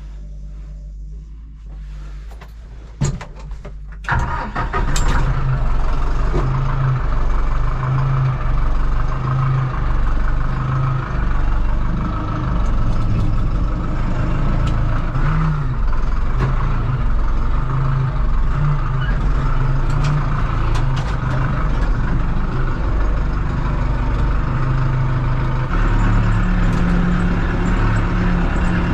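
Diesel engine of a four-wheel tractor running, a heavy steady drone. It is quieter at first, with a sharp click about three seconds in, and turns loud about four seconds in as the tractor works.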